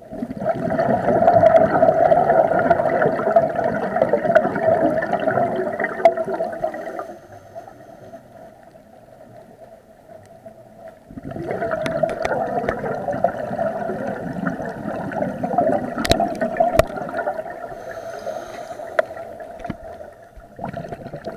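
Scuba diver's exhaled breath bubbling out of the regulator, heard muffled from an underwater camera. It comes as two long stretches of bubbling with a quieter few seconds between them, as the diver breathes in, and a couple of sharp clicks come late on.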